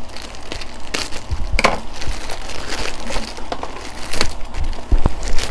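Plastic packaging crinkling and rustling as an item is handled and unwrapped, with a couple of short low knocks near the end.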